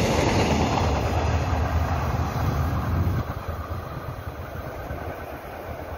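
A Korail Mugunghwa-ho passenger train passing close by, its wheels rumbling on the rails. The sound falls away sharply about three seconds in as the last cars go past and the train pulls into the distance.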